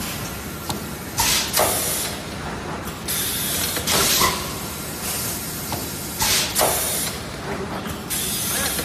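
Automatic PET bottle blow-moulding machine running, with short hisses of compressed air from its pneumatic valves and blowing, several times and a second or two apart, over a steady mechanical hum.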